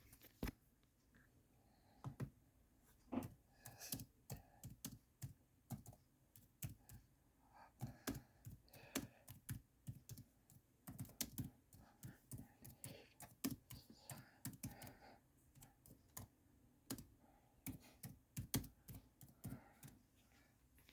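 Typing on a computer keyboard: quiet, irregular key clicks in short runs with pauses between them.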